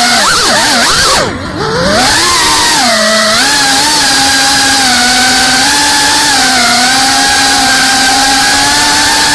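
A Geprc Cinelog 35 FPV cinewhoop's brushless motors and propellers whining, heard from the onboard camera. In the first two seconds the pitch swoops down and back up with throttle changes, dipping in loudness as the throttle is cut about a second and a half in. After that it holds a steady whine that wavers slightly.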